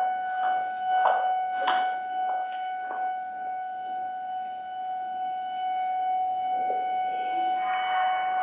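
Subway platform ambience between announcements: a steady high-pitched tone runs throughout, with a run of evenly spaced taps in the first three seconds and more background noise building near the end.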